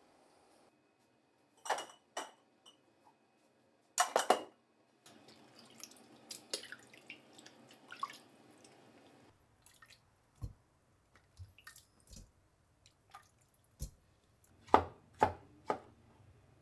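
Kitchen sounds of tomatoes being prepared: a few sharp knocks, the loudest about four seconds in, then water splashing and dripping as tomatoes are washed by hand in a steel pot, then a kitchen knife cutting tomatoes on a wooden cutting board in separate thuds, the loudest near the end.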